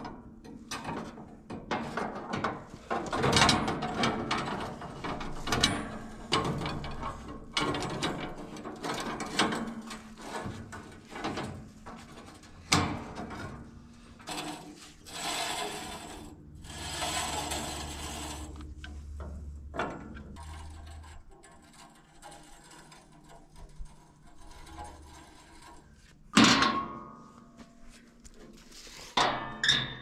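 Clicks, clinks and scraping of a steel band blade being handled and worked around the wheels of a portable band sawmill during a blade change. Near the end come two loud metal bangs, as the hinged steel wheel covers are shut.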